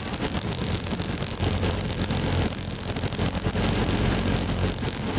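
Golf cart driving over a gravel driveway: steady motor and tyre noise on the loose gravel.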